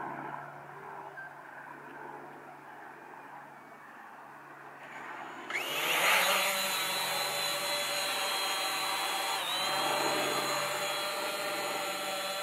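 Hubsan Zino quadcopter's motors spin up about halfway through and it lifts off, then hovers low with a steady, high-pitched propeller whine made of several tones. The pitch dips briefly about three-quarters of the way in.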